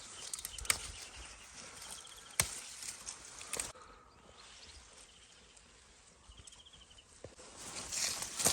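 Fava bean plants being handled by hand: rustling leaves and stems with a few sharp snaps, quieter for a few seconds in the middle. Faint short trills come now and then.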